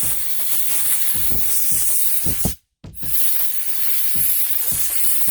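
Compressed-air blow gun hissing as it blasts out the front half of a 34cc engine's crankcase to clear metal fragments. The hiss breaks off sharply for a moment a little past halfway, then carries on.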